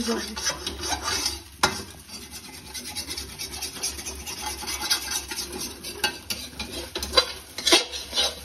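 Metal spatula stirring and scraping scrambled egg around a large metal kadai in quick repeated strokes, over a light frying sizzle. A sharp clack of metal on the pan about one and a half seconds in.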